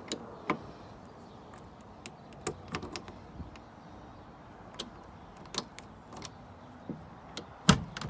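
Key clicking and turning in the chrome door lock of a 1967 MGB GT, a run of small separate clicks. Near the end comes a loud clunk as the door handle's push button releases the latch.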